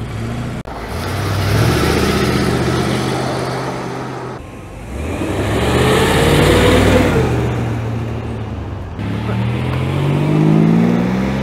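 Classic cars driving past one at a time, their engines pulling away and accelerating, in three separate passes. The middle pass, a BMW 8 Series coupé, is the loudest, and the engine note of the last car rises as it speeds up.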